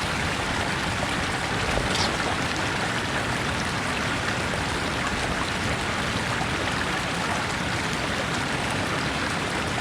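Mountain spring water running steadily, with a brief knock about two seconds in.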